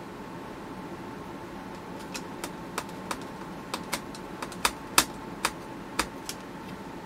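Small screwdriver driving a screw into the plastic case of a small radio, with a string of about a dozen sharp, irregular clicks and taps starting about two seconds in, the loudest about five seconds in, over a steady low hum.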